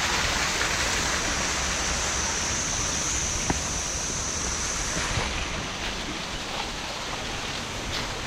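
Waterfall rushing steadily, a little quieter after about five seconds.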